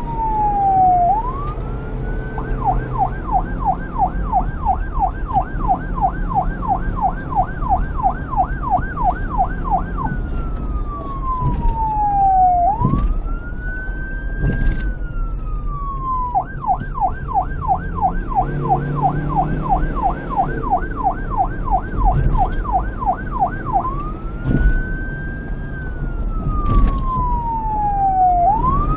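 Electronic police siren alternating between a wail and a rapid yelp: a slow falling sweep that swings quickly back up, then several seconds of fast repeated yelps, another wail, a second run of yelps, and a wail again near the end. A steady low rumble runs underneath.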